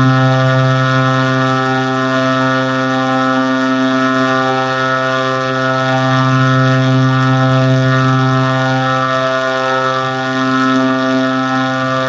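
A loud, steady, buzzy low tone held without a break, like a horn.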